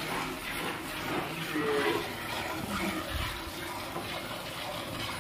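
Hand milking a buffalo: streams of milk squirting from the teats into a steel pail, a hissing series of repeated squirts.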